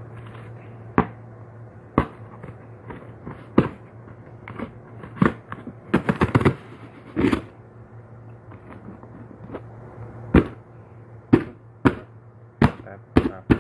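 Scissors cutting and jabbing through the packing tape on a cardboard shipping box: a series of sharp, irregular snips and clicks, with a quick run of several about six seconds in.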